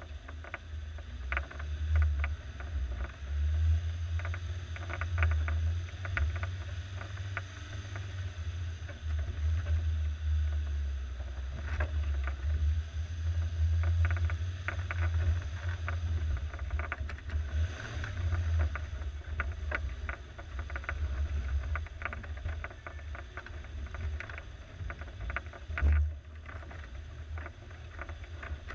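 Low, steady drone of a 1987 Suzuki SJ413's 1.3-litre four-cylinder engine as the off-roader crawls over rough ground, with frequent sharp clicks and rattles and one heavy thump near the end.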